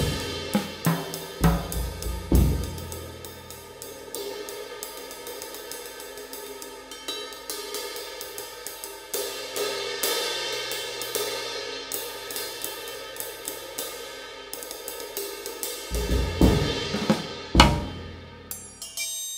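Music led by a drum kit, with cymbals and hi-hat: loud drum hits at the start, a long quieter stretch of cymbal and hi-hat strikes, then heavy hits again near the end.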